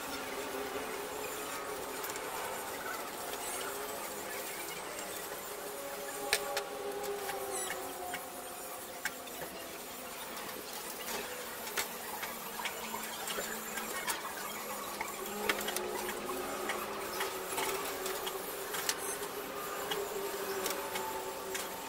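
Metal parts of a TV aerial being handled and fitted, with scattered sharp clicks and clinks as the metal mounting clamps go onto the boom. Underneath runs a steady background of wavering tones.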